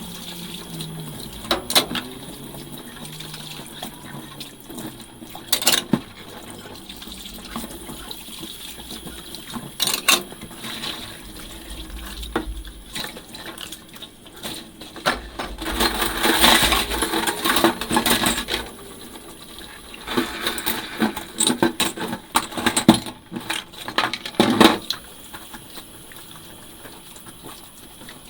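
Dishes being washed by hand in a sink: ceramic and glass clinking now and then, with a louder stretch of water and washing noise about halfway through and a run of clinks after it.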